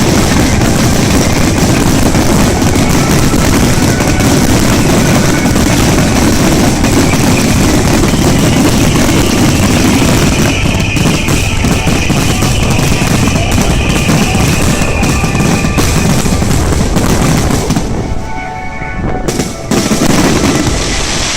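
Dense, rapid-fire barrage of aerial fireworks shells from a starmine, bursting and crackling without a break, with music playing underneath. Near the end the barrage thins for a moment so the music is heard clearly, then one more loud burst.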